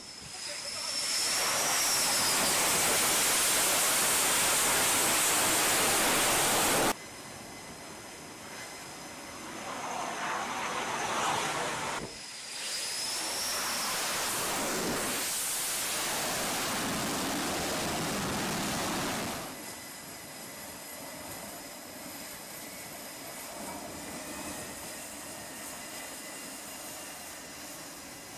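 Carrier-based fighter jet's engines, loud and rushing with a high whine, during a carrier landing. The noise cuts off suddenly about seven seconds in, then swells again for a second loud stretch before dropping to a lower rumble near the end.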